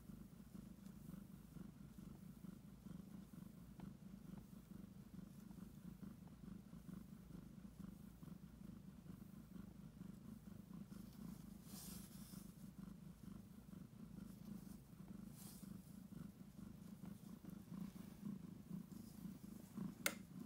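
A heavily pregnant domestic cat purring steadily and intensely, close to giving birth.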